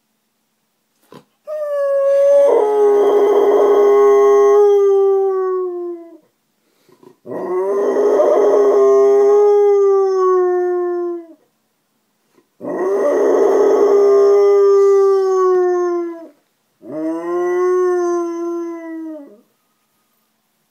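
Young Alaskan Malamute howling: four long howls with short breaks between them, the last one shorter. Each holds a steady pitch and falls slightly at its end.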